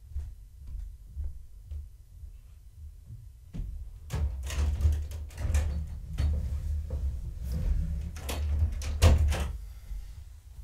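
A run of knocks, clatters and rattles from things being handled and moved, over a low rumble. It is sparse at first, busy from about a third of the way in, with the loudest knock near the end.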